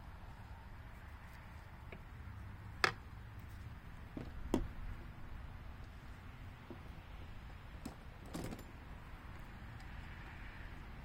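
A few scattered clicks and clinks of hand tools and metal engine parts being handled during teardown of a Gravely Model L engine's bottom end, the sharpest about three seconds in, over a low steady hum.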